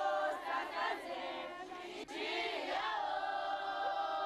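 Large group of Zulu girls and young women singing together in unison, holding long notes in phrases, with a short break about two seconds in.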